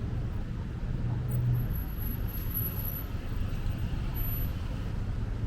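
City road traffic: a steady low rumble of car and bus engines passing.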